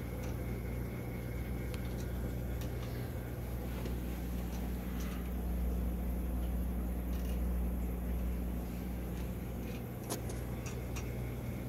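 Small 4-watt, 120-volt AC gear motor humming steadily as it turns a homemade lure turner at about 5–6 rpm, with a light click near the end.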